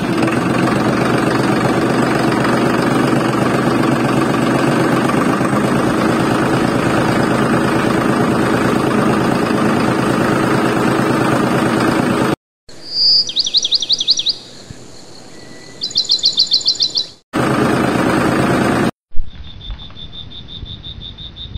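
A tractor engine running steadily. It cuts off after about twelve seconds for birds chirping in short high trills, comes back briefly, and gives way near the end to a steady high insect-like chirring.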